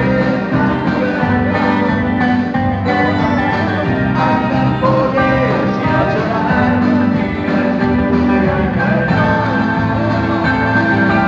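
Live band music: electric guitar over a steady bass line, with a singer's voice.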